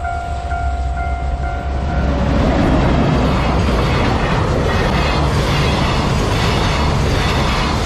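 A level-crossing warning bell rings repeatedly until about two seconds in. A freight train hauled by a JR Freight EF210 electric locomotive then passes over the crossing with a loud, steady rumble of wheels on rail, with a faint regular clatter.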